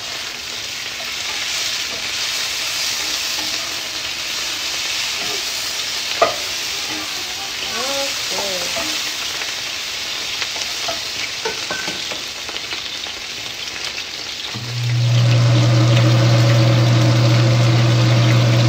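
Chicken sizzling and frying in a skillet as it is stirred, with one sharp knock about six seconds in. About fifteen seconds in, a steady low motor hum comes on and is louder than the sizzle.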